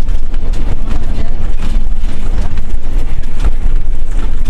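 Heavy, steady low rumble of a coach bus driving at speed, its engine and road noise heard from inside the cabin, with irregular knocks and rattles.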